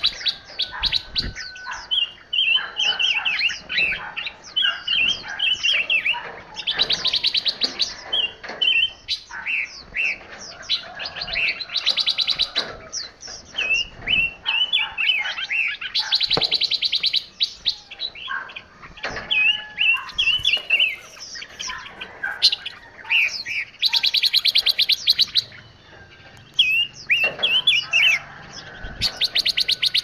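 Several caged songbirds singing together: a steady stream of short, quick chirps, broken every four to eight seconds by a loud, rapid buzzing trill lasting about a second.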